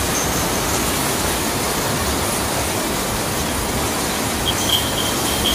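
Steady rain, an even hiss of noise with no break. A thin, high, steady tone comes in near the end.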